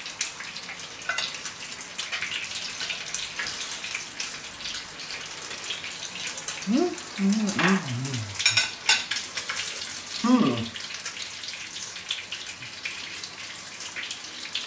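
Fleischpflanzl (German meat patties) sizzling and crackling steadily in a frying pan. A man's voice hums briefly twice near the middle.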